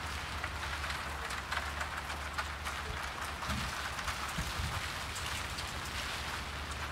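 Steady rain falling on the street: an even hiss full of small, quick drop ticks, over a low steady rumble.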